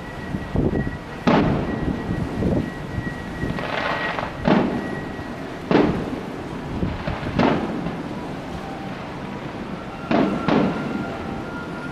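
Aerial fireworks bursting in a series of about six sharp bangs with echoing tails, a few seconds apart. A crackling burst comes around the fourth second.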